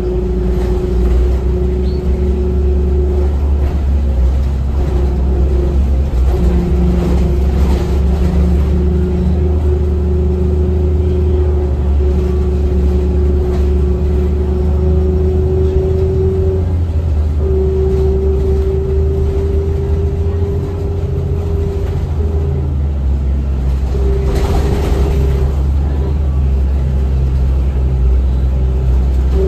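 Passenger-cabin sound of a 2007 Orion VII hybrid-electric transit bus running: a steady low rumble with a humming tone above it that cuts in and out and edges up in pitch at times. A few brief rushes of noise come through, the loudest about 24 seconds in.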